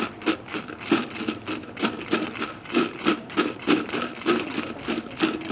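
Shoppers' footsteps and indistinct voices in a busy indoor entrance hall: irregular light clicks and knocks, about two or three a second, with short snatches of distant talk.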